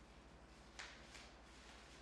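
Bubble wrap popped by hand: two quiet, short pops about a third of a second apart, a little before the middle, over a low steady hum.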